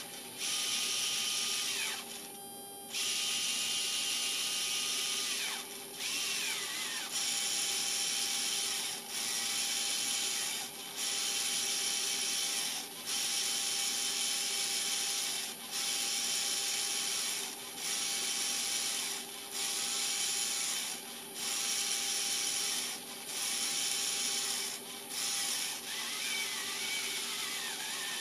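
The radio magnetic indicator's compass-card servo, a small AC motor and gear train, whirring in runs of one to two seconds with short pauses as the card slews to follow a hand-turned synchro transmitter. A steady electrical hum runs underneath, and near the end the whirr's pitch wavers up and down.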